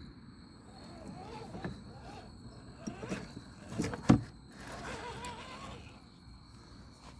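RC scale crawler truck's electric motor and drivetrain whirring in uneven spurts as it climbs, with one sharp knock about four seconds in.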